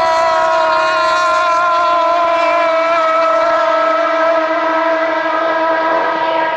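Racing outboard motor running at high revs: a loud, steady high-pitched engine note whose pitch sinks slightly over the last few seconds.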